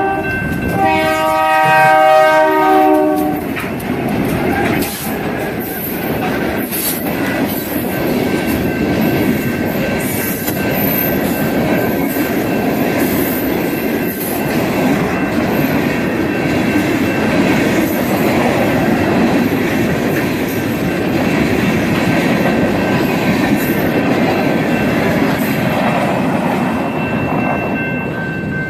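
A locomotive's horn sounds and ends about three seconds in. Freight cars then roll past with a steady rumble and clatter, easing off near the end.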